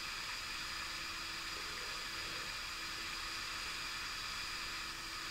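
Steady hiss of background noise with a faint, even hum underneath: room tone, with no distinct sound.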